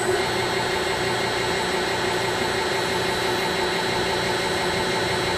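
Automated circle welder's drive motor running as the machine rapid-travels to the next stitch-weld position: a steady machine hum with a high whine, starting at once and holding level.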